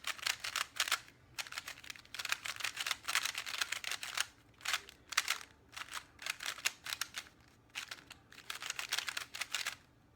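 Plastic Rubik's cube being turned quickly by hand, with rapid clicking and scraping of the layers in spurts and short pauses. The new stickerless cube feels stiff, and the cuber guesses it just needs to be worked in.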